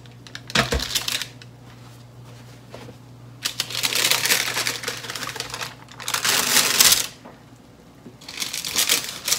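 A metal oven tray set down on a counter with a short knock, then baking paper slid and dragged off the tray, a long rustling scrape, with a shorter rustle near the end.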